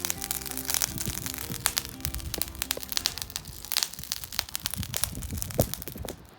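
Background music over an open fire crackling with many sharp pops and snaps; the music thins out about halfway, and everything cuts off abruptly near the end.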